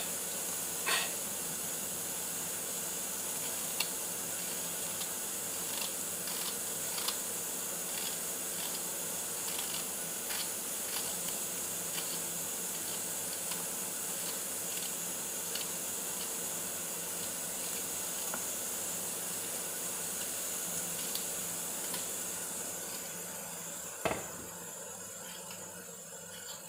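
A steady high hiss fading over the last few seconds, with scattered light clicks and taps as green chillies and mint are trimmed with a knife over a plate, and one sharper click near the end.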